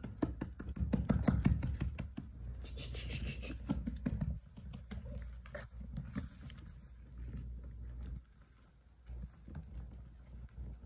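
French bulldog puppies scampering and scuffling in play on a hardwood floor: quick clicks and pattering of claws and paws, busiest in the first four seconds and sparser after.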